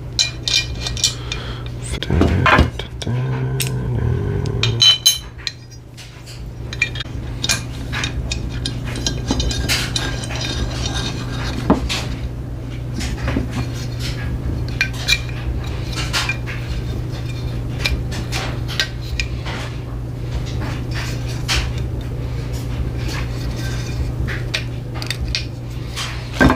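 Metal parts and hardware of a benchtop jointer clinking, clicking and knocking as they are handled during assembly, in scattered irregular taps over a steady low hum.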